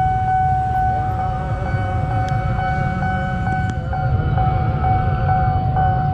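Railway level-crossing warning alarm sounding: a steady electronic tone pulsing about twice a second, with a second, wavering tone joining about a second in, over a low rumble.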